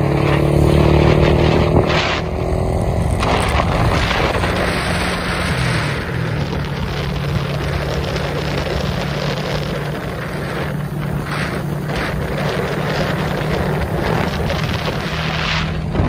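Engine of a moving vehicle running steadily, with road and wind noise over it; the engine's pitch dips slightly about five or six seconds in.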